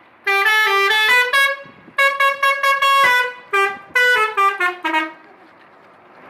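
Bus 'telolet' multi-tone air horn playing a quick tune of short, separate notes, one held longer in the middle, stopping about five seconds in.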